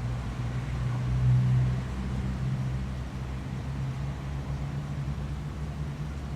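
A low, steady machine hum that swells briefly about a second in.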